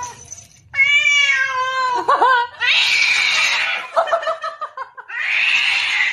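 Domestic cat meowing: one long, loud meow that falls slightly in pitch, then a couple of short meows, with two stretches of breathy noise later on.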